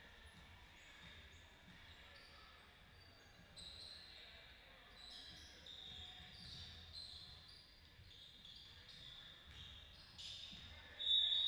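Basketball game in a gym: a ball bouncing on the court and sneakers squeaking in short high chirps, with faint voices. A louder, held high squeal comes near the end.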